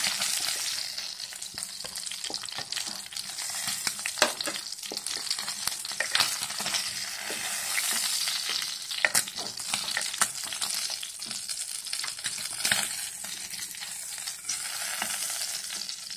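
Fried fish steaks and hot oil sizzling in a nonstick pan, a steady hiss, as a wooden spatula lifts the pieces out, knocking and scraping against the pan a number of times.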